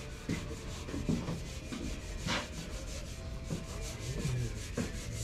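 Painted steel cabin roof of a narrowboat being rubbed down by hand with a sanding pad, in irregular scrubbing strokes, one stronger about two seconds in. This is keying the existing paint as prep for a repaint.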